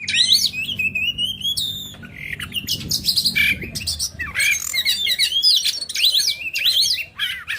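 A songbird singing a fast, varied run of whistles and chirps, the notes sliding up and down in pitch with hardly a pause.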